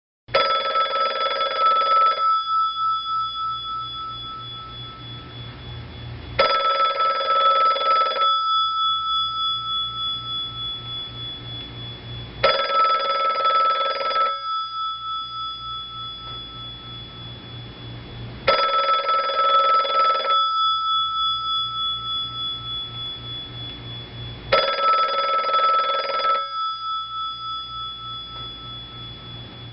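Old telephone's bell ringing five times, each ring about two seconds of fast clapper rattling, starting about six seconds apart. This is the classic two-seconds-on, four-seconds-off ring pattern. The bell's tone lingers and fades after each ring.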